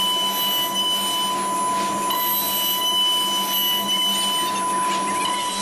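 Thermwood CNC router spindle cutting a square wooden post held in a rotary axis: a steady high whine over the even noise of the cut.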